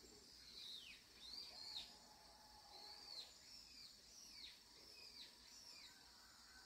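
Faint bird calls: short chirps that rise and fall in pitch, about two a second, over a faint steady high hiss.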